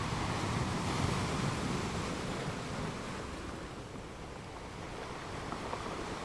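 Gentle ocean waves washing onto a sand beach: a steady rush of surf that swells over the first couple of seconds, ebbs to its lowest about four seconds in, then builds again.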